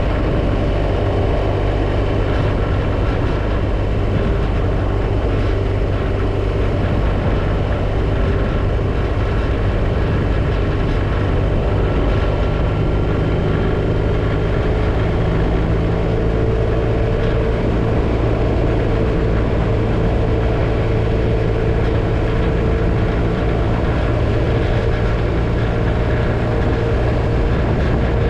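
BMW R1250RT motorcycle's boxer-twin engine running steadily at cruising speed, with wind and road noise over it. The engine note holds even, lifting slightly about halfway through.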